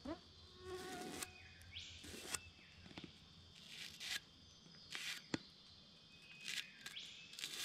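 Faint, short scraping strokes on a wooden log, spaced a second or so apart, as lines are marked out on it. A single sharp tick about five seconds in.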